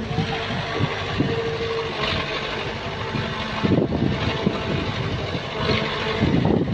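Kobelco SK03 mini excavator's diesel engine running steadily as it works its boom and bucket, with bursts of clatter about halfway through and again near the end.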